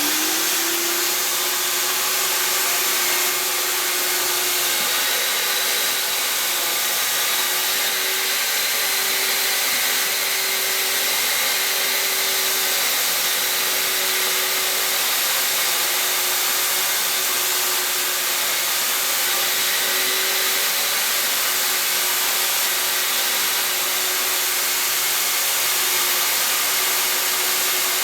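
Industrial vacuum cleaner running at full speed: a steady whooshing rush of air over a constant motor whine, the motor just reaching full speed in the first moment.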